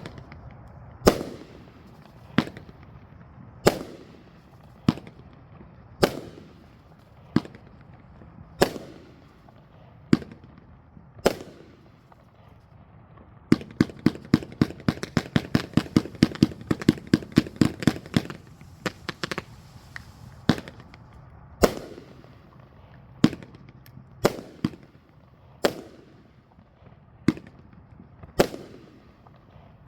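A 500-gram zipper-style consumer firework cake firing its shots one by one, a sharp bang about every second. Around halfway through it speeds up into a rapid run of four or five shots a second for several seconds, then goes back to single spaced shots.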